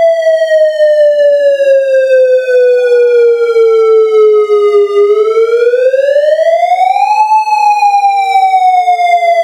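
AudioKit Synth One software synthesizer imitating a Federal Signal Modulator siren: one sustained tone held on a single key and swept with the pitch-bend wheel. It slides slowly down, climbs back up about five to seven seconds in, then slides slowly down again, with a fainter echo of the sweep trailing behind.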